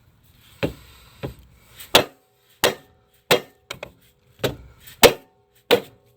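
About nine hammer blows on the car's front steering knuckle, each a sharp metallic strike with a brief ring. They are struck while the knuckle is pried down with a crowbar, to pop the rusted lower ball joint loose.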